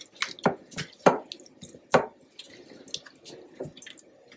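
A spoon stirring chicken wings through melted garlic-butter and parmesan sauce in a glass bowl: irregular wet smacks and clicks, loudest in the first two seconds.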